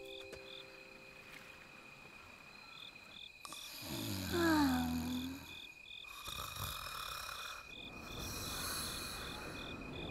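Night-time crickets chirping, a steady high trill with pulses about three a second. About four seconds in there is a drawn-out, falling voice-like sound, and later two longer stretches of breathy, rustling noise.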